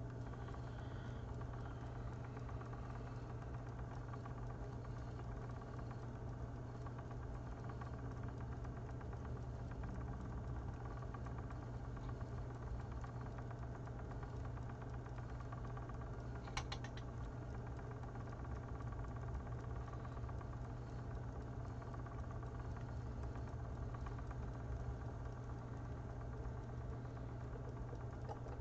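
Magpie Daedalus spinning wheel running at a steady speed, its flyer and bobbin spinning with a steady hum as corespun art yarn with locks winds on. A single sharp click comes a little past halfway through.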